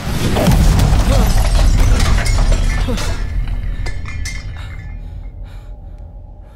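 Sci-fi time-travel sound effect: a heavy hit with deep rumble and a dense spray of crashing, glass-like shattering that fades away over several seconds.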